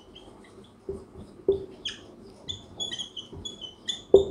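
Marker squeaking on a whiteboard while writing, in many short high chirps with a few knocks of the marker against the board.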